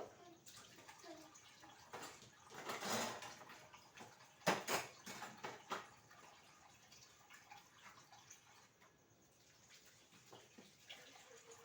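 Dishes being washed by hand at a sink: a short rush of running water about two and a half seconds in, then a few sharp knocks of dishes against each other, with faint dripping and handling sounds the rest of the time.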